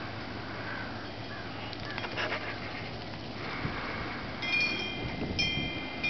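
Wind chimes struck twice, about a second apart, each strike ringing on with several clear tones over a steady wind hiss. A short patter of clicks comes about two seconds in.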